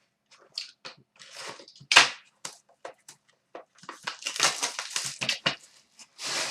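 Hockey card pack wrappers being torn open and crinkled: a run of short, irregular rustling crackles, busiest about four to five seconds in.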